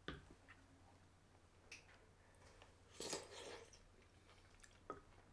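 Quiet eating sounds: a wooden spoon clicking and scraping in a ceramic bowl of rice porridge, a few soft taps with a longer, hissy sound about three seconds in.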